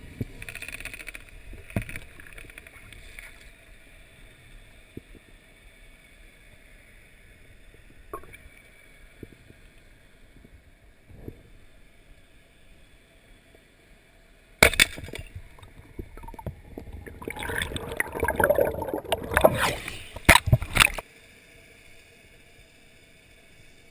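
Lake water heard through an underwater camera during a freedive: a low murmur with a few scattered clicks, then from about fifteen seconds in a loud spell of splashing, gurgling water that stops abruptly about six seconds later.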